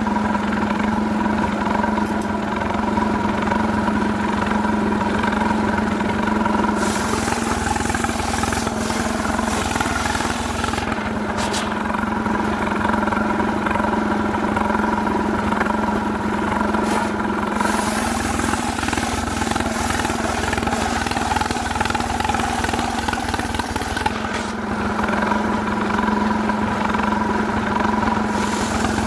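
Stihl two-stroke chainsaw running steadily under throttle as it saws jackfruit wood, its engine note holding level throughout. A hissing layer joins the engine from about a quarter of the way in until near the end.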